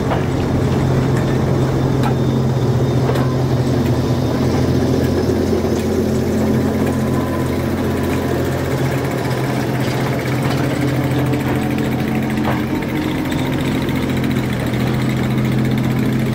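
Class 08 diesel shunter's engine running steadily at low revs as it moves a short train of wagons slowly past, with a few light clicks over it.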